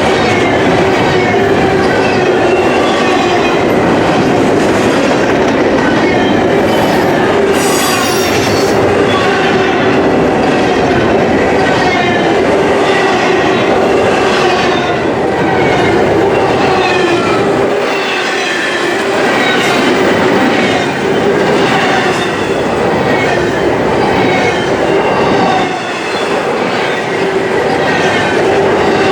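Freight train cars rolling past close by, loud and steady, with the rhythmic clack of wheels over rail joints and repeated short, wavering wheel squeals.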